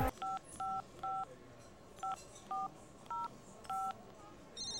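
Push-button telephone dialing a seven-digit number: seven short two-tone keypad beeps at uneven intervals. Near the end an electronic telephone ringer starts trilling.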